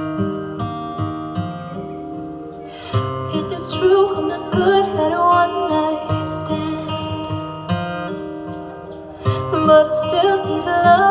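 A song played back through homebuilt speaker cabinets with two 15-inch and two 12-inch woofers plus tweeters: a guitar and bass intro, then a voice singing from about 3 s in.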